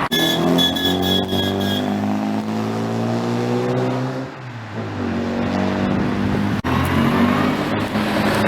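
Modified car's engine running, its note falling steadily for about four seconds, dipping briefly, then rising again as it accelerates from about five seconds in.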